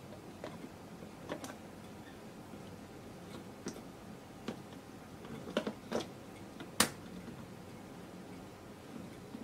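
Light plastic clicks and taps as white plastic inserts are set and pressed into the cups of a plastic egg-mould tray, about eight separate clicks with the sharpest about two-thirds through.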